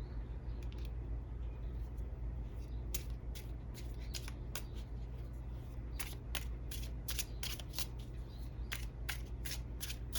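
Tarot cards being handled and shuffled: a run of short, sharp card snaps and flicks that starts about three seconds in and grows denser toward the end, over a steady low hum.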